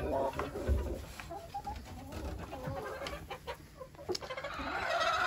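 Roosters and hens clucking in short, irregular calls, with a louder drawn-out call near the end. A few low handling knocks in the first second as a fabric curtain is pushed aside by hand.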